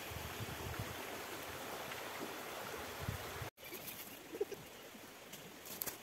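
Riverside ambience: a steady rush of flowing water that cuts off abruptly about halfway through. After the cut it is quieter, with a few soft, low bird notes.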